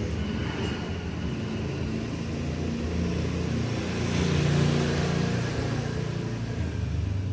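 Low rumble of a motor vehicle's engine that swells about four to five seconds in and eases off near the end.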